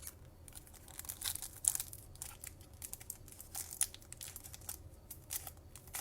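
Foil trading-card pack wrapper being torn and crinkled open by hand in irregular crackles and rips. The wrapper is stubborn and hard to tear open.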